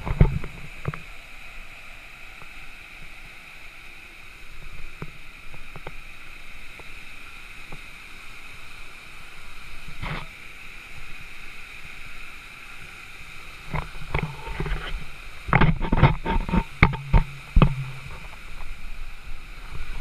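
Steady hiss of a small waterfall pouring into a rock pool, with knocks and bumps from walking over rocks in the last few seconds.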